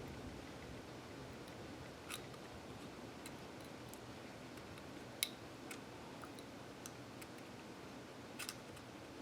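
A few small, sharp clicks and scrapes of a hand tool working at a calculator's glued screen ribbon cable, the loudest about five seconds in, over a faint steady room hiss.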